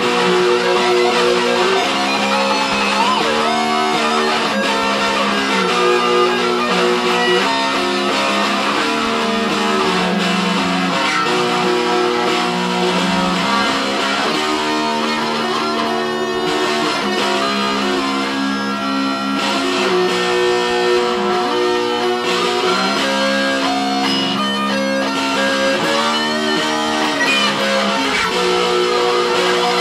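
Guitar duet: a Stratocaster-style electric guitar and an acoustic-electric guitar playing together, held chords that change every second or two under a picked melody line.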